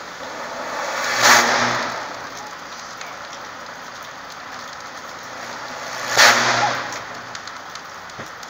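Overhead power line arcing and burning at a utility pole: a steady crackling sizzle, swelling twice into a loud buzzing surge, about a second in and again about six seconds in.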